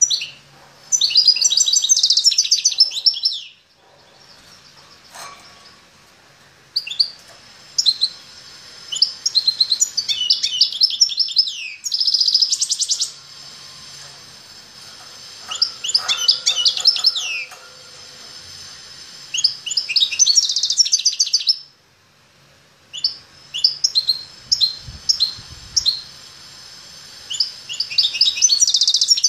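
A caged songbird singing: rapid, high warbled phrases of one to three seconds, repeated every few seconds with short pauses between them.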